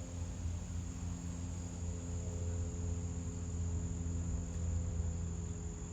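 Insects trilling as one steady high-pitched note, over a low background rumble.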